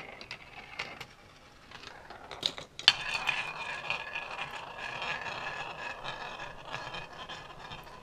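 Gravitrax marble run: a couple of sharp plastic clicks just before three seconds in as a marble drops in, then the marble spinning round the plastic Vortex bowl, a steady whirr with a thin high ringing that slowly fades.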